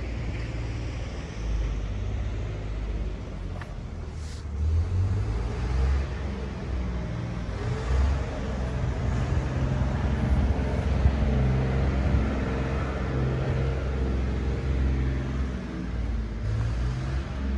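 An engine running close by, a low rumble that shifts in pitch every second or two. A brief sharp click about four seconds in.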